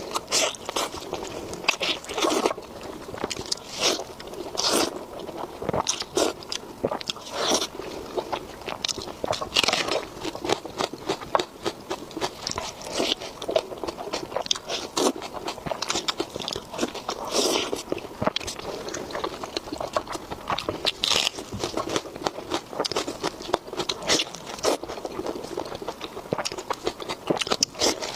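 Close-miked eating: a person biting and chewing food, with many irregular crunches and wet mouth clicks.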